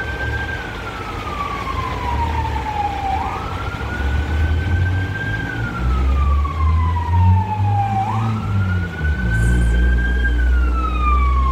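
Fire truck siren wailing: each cycle rises quickly, holds high, then slides slowly down, repeating about every four and a half seconds, three times. Under it runs a low engine rumble that grows louder in the second half.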